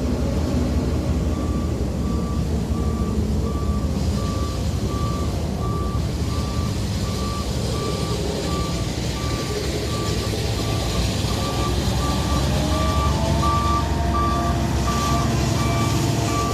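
Reversing alarm on a heavy road-works vehicle beeping steadily, about three beeps every two seconds, over the low, steady running of its engine. About twelve seconds in, a second tone rises and then holds.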